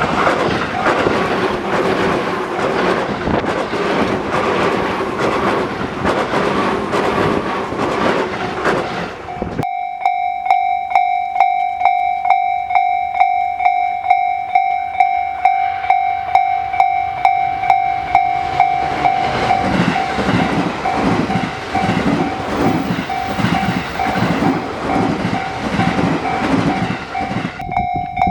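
Japanese railway level-crossing alarm ringing with steady, evenly repeated dings while a Tobu Tojo Line train runs past with loud wheel-on-rail noise. The train noise stops abruptly about a third of the way in, leaving the crossing bell alone. Later another train approaches and passes with a rhythmic clatter of wheels over rail joints.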